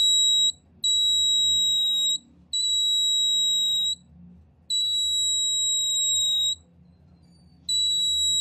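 IR proximity sensor circuit's buzzer giving a steady high-pitched beep that switches on and off, five times in all, each beep lasting one to two seconds. It sounds whenever the card is brought in front of the sensor, signalling that an obstacle has been detected.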